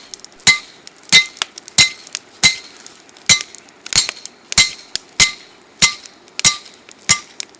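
Hand hammer forging hot rebar flat on a steel anvil block: steady blows about one and a half a second, each with a bright metallic ring, with lighter taps in between.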